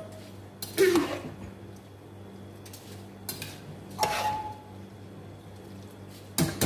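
Spoon scooping soaked rice out of a bowl into a cooking pot, knocking against the bowl and pot rim about four times; the knock about four seconds in rings briefly. A steady low hum runs underneath.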